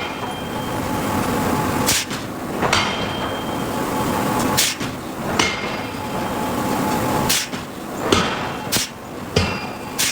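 Large hydraulic forging hammer striking hot steel: about nine heavy blows at an uneven pace, some in quick pairs, each with a short metallic ring, over the steady running noise of the hammer's machinery.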